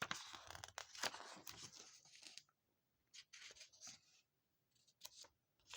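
Faint paper rustling as the pages of a small comic book are handled and turned, a couple of seconds of rustle with light clicks, then a few shorter rustles.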